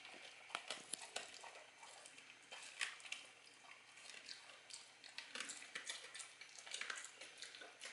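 Dog chewing and crunching raw chicken: faint, irregular wet clicks and crunches, a few louder ones scattered through.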